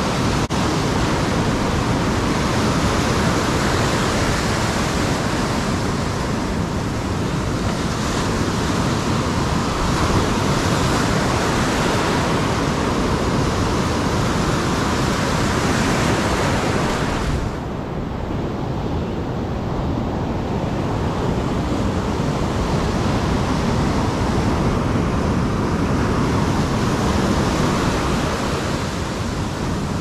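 Big ocean surf breaking close by and churning whitewater rushing around the shallows: a continuous heavy rush of noise. The hiss thins for a few seconds a little past the middle, then builds again.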